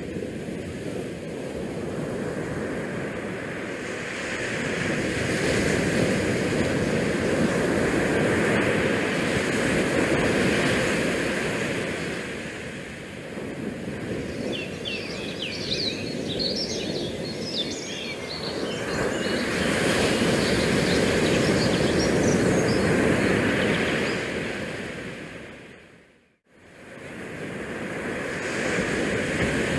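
Steady outdoor wind and water noise from the bay beach, swelling and easing every several seconds. About halfway through there are a few seconds of high bird chirping, and near the end the sound drops out almost completely for about half a second.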